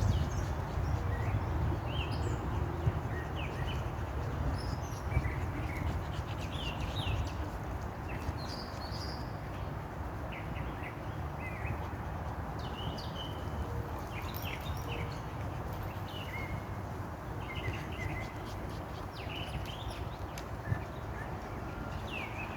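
Birds chirping now and then in short calls, over a steady low rumble.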